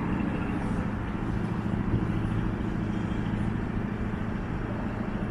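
Steady low rumble of city traffic with a constant low hum.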